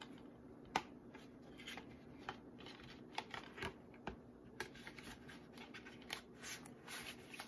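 A plastic disc case being handled and turned over in the hands: faint, scattered clicks and rustles, with a few sharper clicks.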